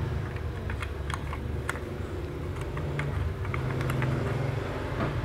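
Light, irregular metal clicks and taps as the shuttle-hook parts of a Butterfly sewing machine are fitted by hand back into the hook race, over a steady low hum.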